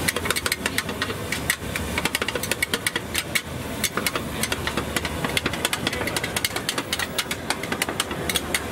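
Metal spatula clanking rapidly and irregularly against a wok as noodles are stir-fried, over a steady low rumble.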